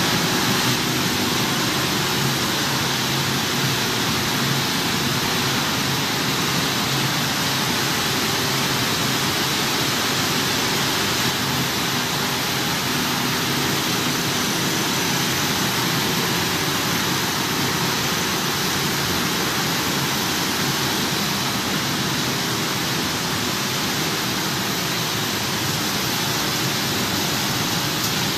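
Steady, even noise of a corn flakes processing line running: electric motors and air-conveying blowers, with a thin steady high whine.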